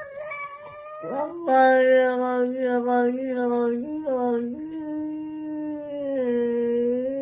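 A cat's long yowl: a short rising call at the start, then one long drawn-out call from about a second in, held at a fairly steady pitch with slight wavers.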